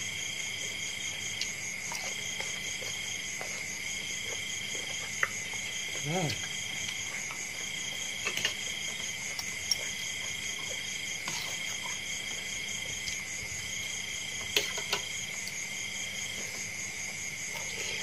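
Insects chirping without pause: a steady high trill and a second chirp that pulses on and off in bursts of about a second. Over it come a few sharp clinks of a spoon and fork against a ceramic bowl during eating.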